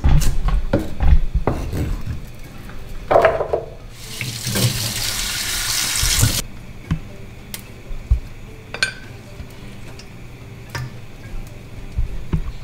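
Kitchen tap running for about two seconds into a stainless steel sink, splashing over Thai basil in an enamel colander, then shut off suddenly. Before it come a few knocks and clatter, and after it light taps as the wet herbs are handled.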